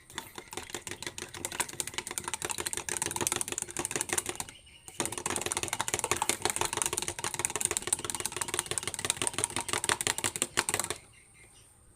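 Rapid stirring of a honey and ground turmeric-and-leaf mixture, a utensil scraping and clicking quickly against its container. It pauses briefly about four and a half seconds in, starts again, and stops about eleven seconds in.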